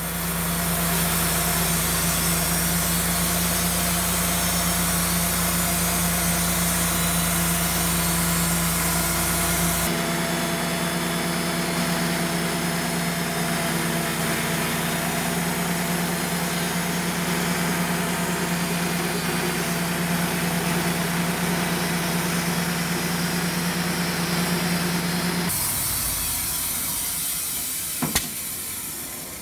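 Wood-Mizer LT35 portable band sawmill running, its engine holding a steady tone while the band blade saws through a maple cant. Near the end the sawing noise drops away, leaving the engine, and a short knock follows.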